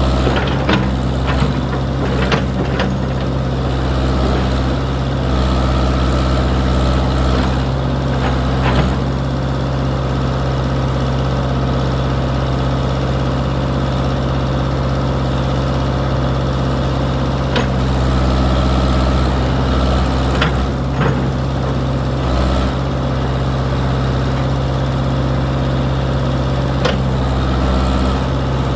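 Old backhoe's engine running steadily, swelling and easing a few times as it works, with occasional sharp metallic knocks from the machine as it digs out a tree stump.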